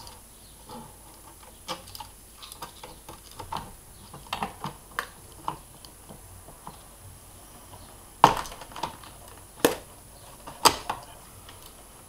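Scattered light clicks and taps of a replacement logic board and its ports being worked into a late-2006 17-inch iMac's metal chassis, with three sharper knocks in the last few seconds as the board is pressed into place.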